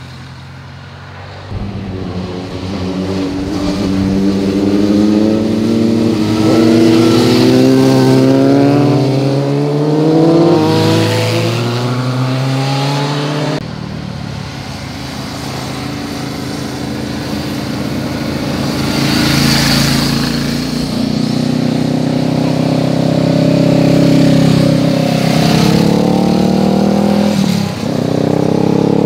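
Motorcycles riding through a hairpin bend one after another and accelerating away, their engine notes climbing in pitch through the gears. About halfway through one rider's sound cuts off suddenly and another motorcycle's engine takes over, passing close by and pulling away with its note rising again.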